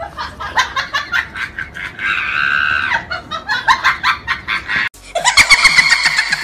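Laughter in quick rhythmic bursts, with a held high-pitched scream about two seconds in.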